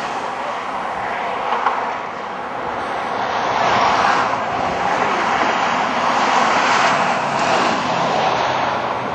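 Three GE AC4400CW diesel locomotives running, their 16-cylinder engines giving a steady engine noise that swells about four seconds in and again around seven seconds.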